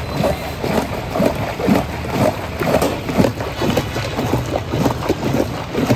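Thick, foamy mango drink sloshing and churning in a large metal pot as a long metal paddle stirs it in quick, uneven strokes, over a steady low background hum.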